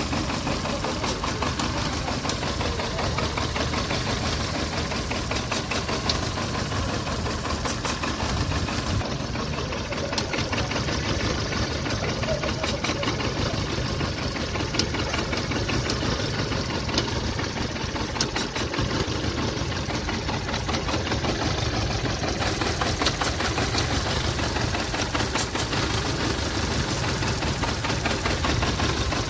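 VW Polo Vivo's 1.4 CLP four-cylinder petrol engine idling with a misfire, with uneven ticking and knocking over its steady running. The misfire is traced to a heat-damaged, broken PCV valve pipe and a faulty number 1 ignition coil.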